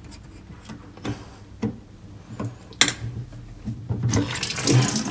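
Small metal clicks and taps as an Allen key works the grub screw on a steel mixer tap, then, about four seconds in, water starts running and splashing into a stainless-steel sink as the swivel spout is pulled up.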